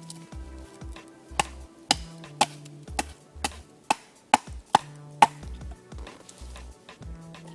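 Background music with a bass line of held low notes, and a run of about nine sharp knocks, roughly two a second, through the middle.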